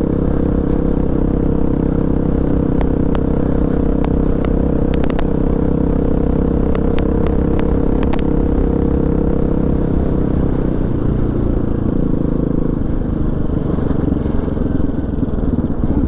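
Hawk DLX 250 motorcycle's single-cylinder engine running at a steady cruise on a sandy dirt road, with scattered sharp ticks a few seconds in. The engine note eases off in the last few seconds as the bike slows.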